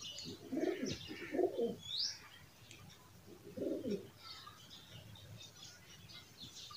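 Pigeons cooing in short low phrases, three times in the first four seconds, with higher chirps of small birds in the background.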